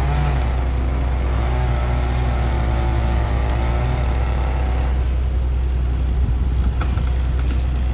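A large engine running with a steady low drone, its pitch wavering up and down as the revs change for the first five seconds or so, then settling.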